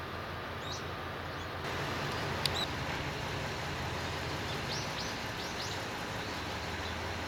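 Steady low hum of a diesel railcar's engine idling, with small birds chirping a few times and one sharp click about two and a half seconds in.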